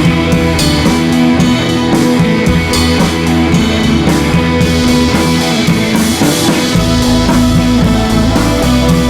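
Rock background music with electric guitar and a drum kit, loud and steady.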